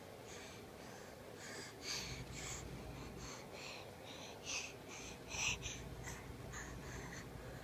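A baby's quick, breathy huffing, short puffs of breath about two a second at an uneven pace, a couple of them stronger about four and five seconds in.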